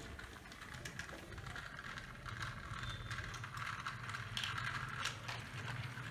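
Battery-powered Thomas & Friends toy train engine whirring steadily as its small electric motor drives it along plastic track, a bit stronger from about two seconds in, with small plastic clicks.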